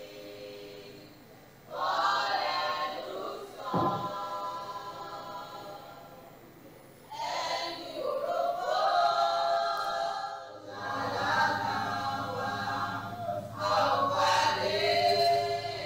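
A group of voices singing together in chorus, in phrases of a few seconds with short gaps between them. There is a single sharp knock about four seconds in, and a low steady hum comes in under the singing about two-thirds of the way through.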